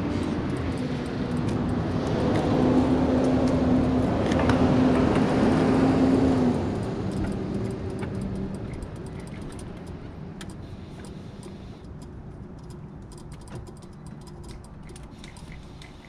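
Motor vehicle engine sound carrying one steady tone, swelling over the first few seconds, cutting down about six seconds in and then fading away, leaving a low hum.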